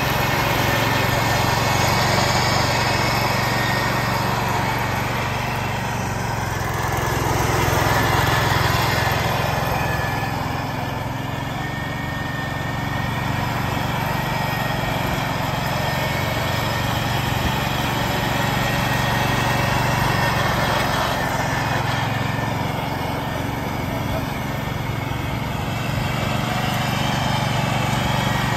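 A 1969 Ford 140 garden tractor's engine running steadily with its mower deck spinning, mulching dry leaves. The sound swells and fades a little several times as the tractor drives away and turns.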